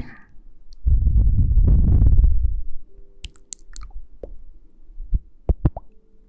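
Close-up muffled rustling and rubbing against an ASMR microphone, loud for a couple of seconds, then a few light clicks and several soft knocks.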